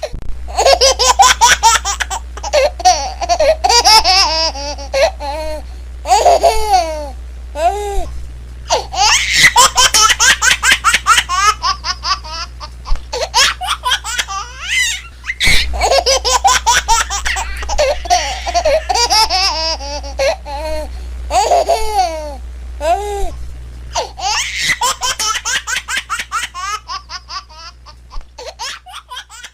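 Baby laughing in long, loud giggling peals. The same roughly 15-second stretch of laughter plays twice over, with a steady low hum underneath.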